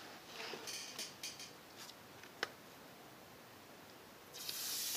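A few small clicks and rustles of a thin plastic welding-helmet cover lens and papers being handled. Near the end comes a second-long hissing crackle as the protective film is peeled off the clear lens.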